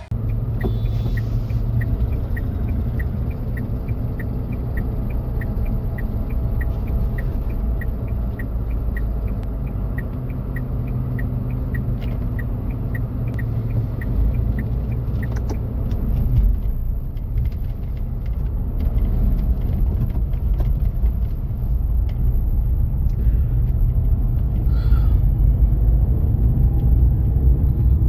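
Steady low rumble of a moving vehicle, road and engine noise, growing a little louder in the second half. A light regular ticking, a little under two a second, runs alongside and stops about halfway.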